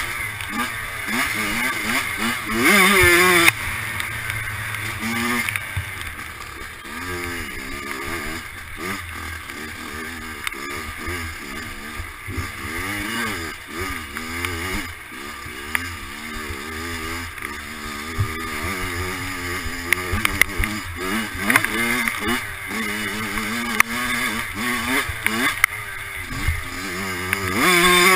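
Dirt bike engine at race pace, its pitch rising and falling over and over as the throttle is opened and shut through tight turns on a woods trail. The engine is loudest about two to three seconds in and again near the end, with the odd sharp knock from the bike.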